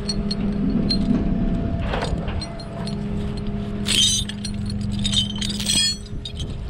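Light metallic clinking and jingling in two short spells, about four and about six seconds in, over the steady low hum of an idling engine.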